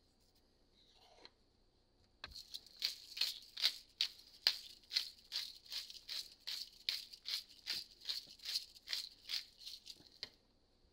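Seasoning shaker shaken in quick repeated strokes, about three a second, its grains rattling; it starts about two seconds in and stops near the end.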